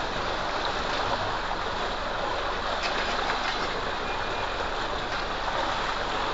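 Steady rush of water gushing from a pipe outlet and splashing into a concrete water tank.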